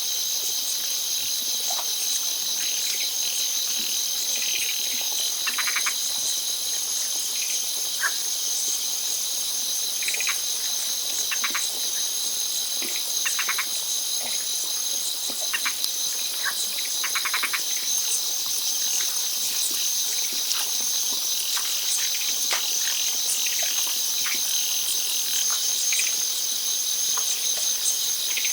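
Steady, high-pitched chorus of insects, with short rattling calls breaking in every few seconds.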